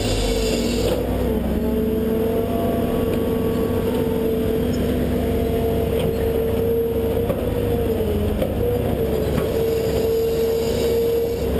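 Excavator's diesel engine running under digging load with a steady whine, which sags briefly in pitch about a second in and again around eight seconds as the bucket works the soil.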